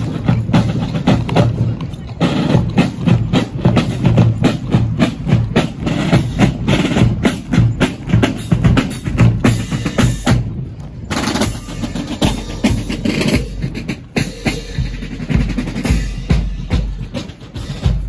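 Royal Guard drum corps marching past, snare drums beating a fast marching cadence over a steady bass drum. The drumming grows fainter in the last few seconds.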